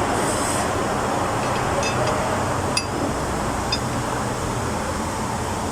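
Steady low mechanical hum with a few faint light clicks, about a second apart in the middle, as metal parts are handled during fuel-injector reassembly.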